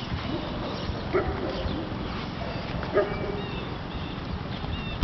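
Open-air ambience over a field: a steady low rumble with small birds chirping. Two short, sharp calls stand out, about one second and three seconds in.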